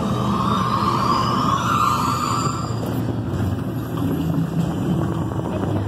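Test Track ride vehicle running along its track in the dark, a steady rumbling ride noise. Rising whines sound over the rumble for the first three seconds or so.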